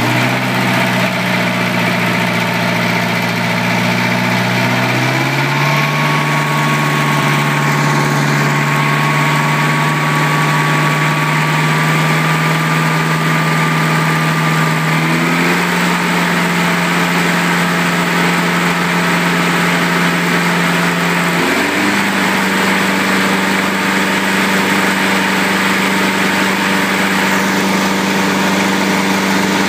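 Wisconsin VH4D air-cooled V4 engine running steadily, freshly rebuilt with new valves and a rebuilt carburetor. Its speed steps up three times, with a thin whistle over the middle stretch.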